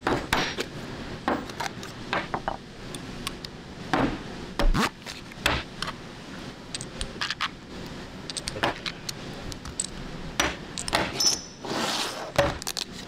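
Steel tool holders and cutting tools clinking and clicking as they are handled, assembled and set down, a run of sharp separate metal clicks and knocks. Near the end a short sliding rush.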